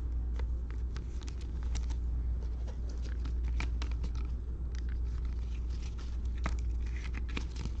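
Trading cards being handled and sorted, with scattered light clicks and rustles of card stock, over a steady low hum.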